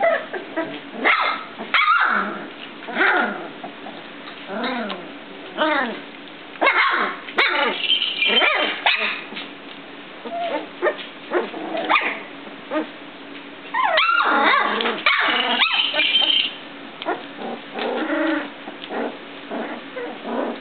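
A litter of 18-day-old puppies whining and yipping as they play, several small voices overlapping in short rising and falling calls. The calls bunch into louder, higher squealing around seven to nine seconds in and again around fourteen to sixteen seconds.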